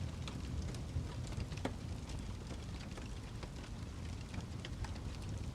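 Wood fire crackling: a steady low rumble of flames with scattered small pops and snaps.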